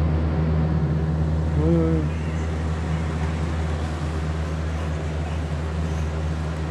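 Steady low mechanical hum, like a running fan or air-conditioning unit, with one brief rising-and-falling vocal sound about two seconds in.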